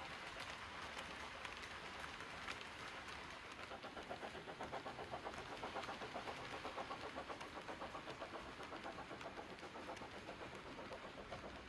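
Model train running: a rake of Accurascale OO gauge MDO and HUO coal wagons rolling over the track with a light steady hiss. From about four seconds in a quick even beat of about four pulses a second joins in.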